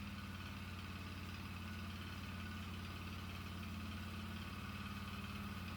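Polaris Sportsman 400 HO ATV's single-cylinder four-stroke engine idling steadily.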